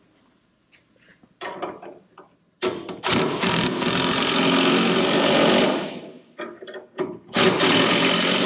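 Pneumatic wrench running in two long bursts, the first about three seconds and the second about two, with a few short blips before, tightening nuts on front suspension bolts.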